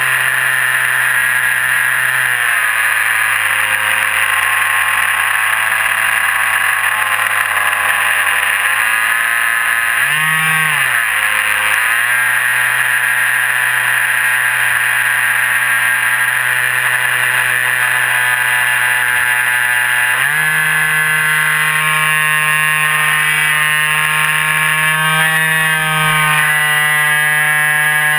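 Electric RC airplane motor and propeller running at speed, heard from close behind the propeller, with a steady whine. The pitch drops about two seconds in, dips and surges again around ten to twelve seconds, and climbs to a higher pitch about twenty seconds in as the throttle changes.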